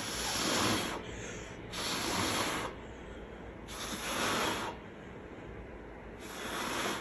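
A person blowing four long puffs of breath, each about a second, onto wet acrylic paint to push it outward into a bloom.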